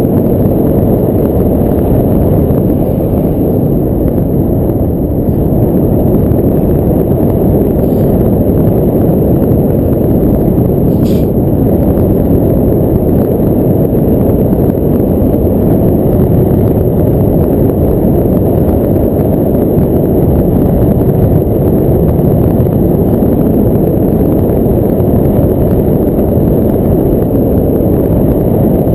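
Strong wind buffeting on a GoPro's microphone in paragliding flight: a loud, steady low rumble of rushing air.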